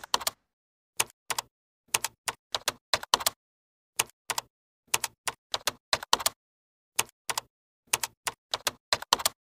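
Typing sound effect: about thirty sharp key clicks in an irregular patter, some in quick runs of three or four, with dead silence between them.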